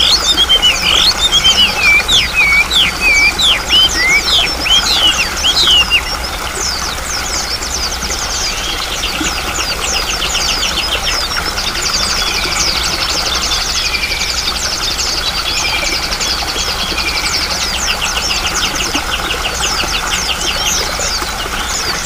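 Several songbirds calling over a steady rush of flowing water. Loud, repeated falling chirps and whistles for about the first six seconds give way to softer, rapid trills.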